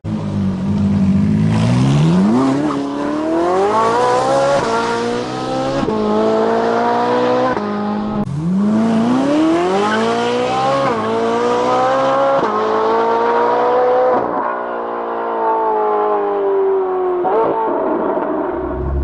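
A fast car's engine accelerating hard through the gears: the engine note climbs steeply, drops back at each upshift, then climbs again. A second full-throttle run starts about 8 seconds in, and near the end the engine note falls away as the car eases off.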